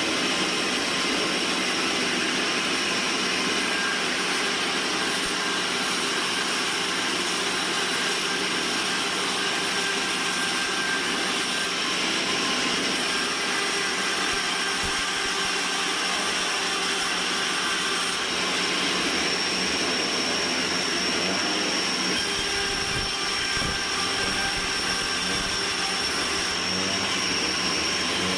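Band sawmill running steadily: a constant machine noise with a thin high whine held throughout.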